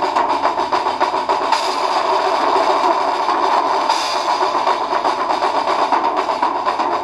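Drum kit played in a fast, frenzied solo: rapid, unbroken rolls of strokes, with two brighter, splashier moments about a second and a half in and again about four seconds in.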